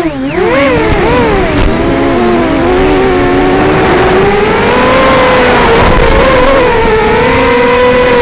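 Small quadcopter's four brushless motors and 5-inch propellers whining. The pitch dips and rises with the throttle in the first second, then holds steadier with a slight rise partway through. Heard through the analog FPV video link's audio, so the sound is narrow and hissy.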